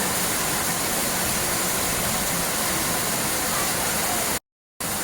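Steady rushing of flowing water, an even hiss at a constant level, broken by a brief silent gap near the end.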